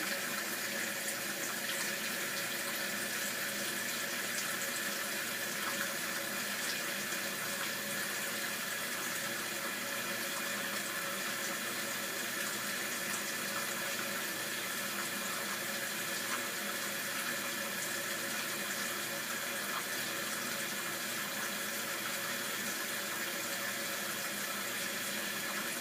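Sink faucet running steadily, water pouring into the basin at an even rate.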